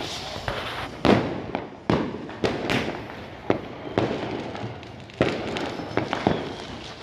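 Fireworks and firecrackers going off at an irregular pace: about a dozen sharp bangs, some louder and closer than others, each trailing off in echo. The loudest bang comes about a second in.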